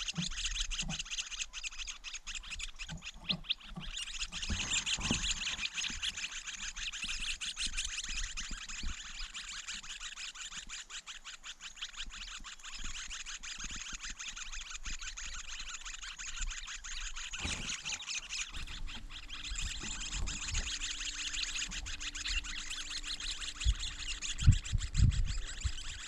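Steady high-pitched buzzing of a dense insect chorus, with a few short low thumps near the end.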